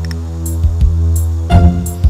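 Background music: a deep, sustained bass with a beat of drum hits.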